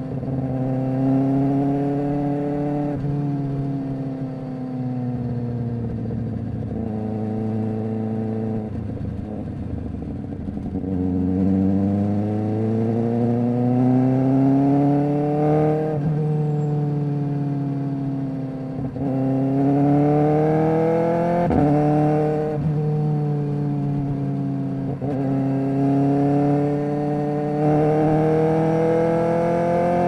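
2023 Kawasaki Ninja ZX-4RR's inline-four engine through an SC Project exhaust, revs climbing and falling as the bike rides through the gears. Abrupt breaks in pitch every few seconds mark quick-shifter upshifts and auto-blipped downshifts.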